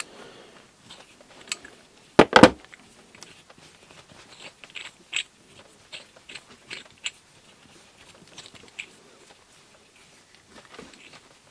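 A steel tie rod end puller being handled, its forcing bolt turned by hand in the threaded body, giving light metallic clicks and scrapes. A loud double knock comes about two seconds in.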